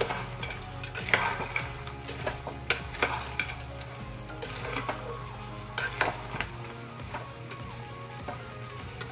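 A metal spatula stirring fried lentil badi into a thick, sizzling potato and eggplant masala in an aluminium pressure cooker, with scrapes and clinks of metal against the pot now and then.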